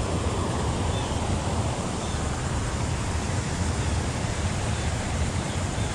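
Steady rushing of water pouring over a small waterfall, an even hiss and rumble with no distinct events.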